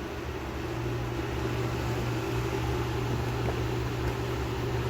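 Steady low hum with a light hiss behind it, no clicks or beeps.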